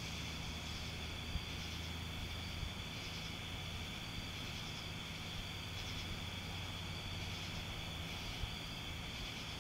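Steady high-pitched chorus of insects, with a fainter, higher chirp repeating about once a second, over a low steady hum.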